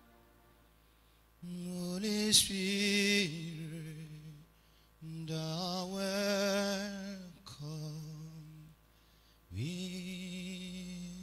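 A man singing a slow worship song in a few long, drawn-out phrases with a wavering vibrato, with quiet pauses between them.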